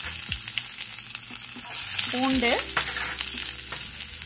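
Chopped ginger and garlic sizzling in hot oil with mustard and cumin seeds, the tempering stage of a stir-fry: a steady hiss with small scattered crackles.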